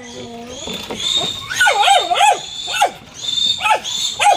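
Piglets squealing repeatedly while being caught and held for weighing: short rising-and-falling cries, with a higher shriek held for a second or so at a time.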